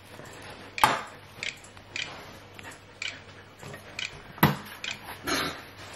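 Knife and forks working a smoked pork knuckle on a ceramic plate: a scatter of sharp clicks and short scrapes of cutlery against the plate and the meat, the loudest about a second in and again past four seconds.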